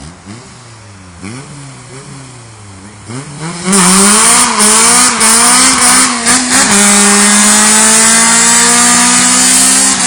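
Car engine revved in quick blips. About four seconds in the tyres break loose into a loud burnout: the engine climbs and is held at high revs while the spinning tyres screech.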